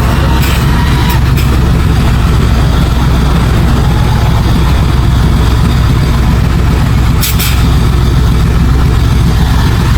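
Heavy diesel engine of earthmoving machinery running steadily with a deep drone, with a few short knocks near the start and one about seven seconds in.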